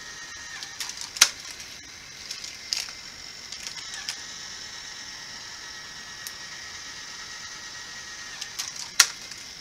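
Small battery motor of a toy car track set's lift whirring steadily as it carries cars up and down the tower, its whine dipping briefly about four seconds in. Sharp clacks about a second in and, louder, near the end.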